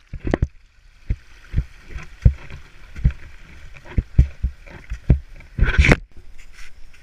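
Irregular dull thumps and rubbing from a handheld action camera being jostled and swung while hiking up a snowy slope, with a louder scrape about six seconds in.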